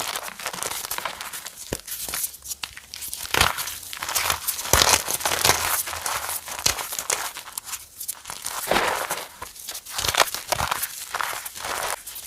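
Crumbly reformed chalk crunching and breaking apart: a dense, continuous run of small crackles and snaps.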